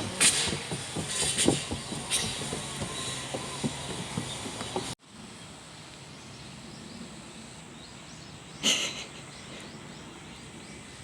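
A small child's running footsteps, quick irregular scuffs and thuds on the ground. About halfway they stop abruptly, leaving a quieter steady outdoor background with one brief louder noise near the end.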